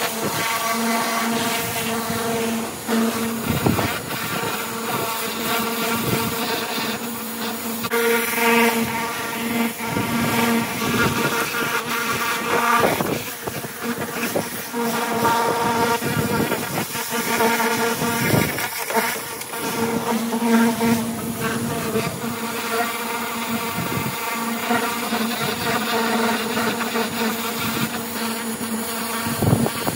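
Pressure washer running: a steady pitched drone from its pump and motor, with the hiss of the water jet spraying the stainless-steel machine, swelling and easing as the lance moves.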